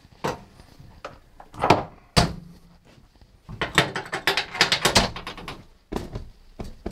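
Fold-down middle berth of a railway sleeping-car compartment being raised and lowered: a few sharp clunks, then a quick clatter of clicks about halfway through and one more clunk near the end.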